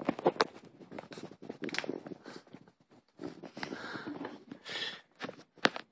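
A kitten scrambling about on mattresses: claws scratching and scuffling on the quilted fabric, with scattered sharp taps and thumps.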